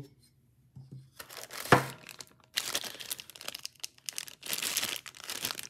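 Packaging crinkling and rustling as parts are taken out of the box, with a single knock about a second and a half in. The rustling is denser in the second half.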